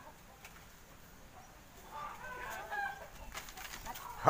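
Chickens clucking faintly, a few short calls, with a few light clicks near the end.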